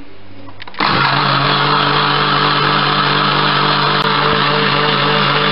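Bosch countertop blender switched on about a second in, its motor running at a steady whir as it blends a runny egg mixture in the glass jar.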